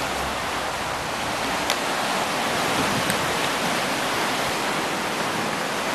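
Steady rush of surf as waves break on the beach.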